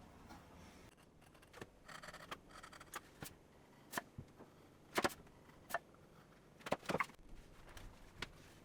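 Hand-tool work on a wooden joint: a series of light, irregular clicks and taps of steel tools and wood pieces, a little over a dozen in all, the sharpest about halfway through and again near the end.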